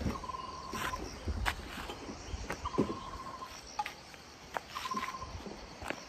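A small creature's trilling call, three short pulsed trills at one steady pitch spaced a couple of seconds apart, over faint outdoor noise, with scattered footsteps and light knocks on a dirt track.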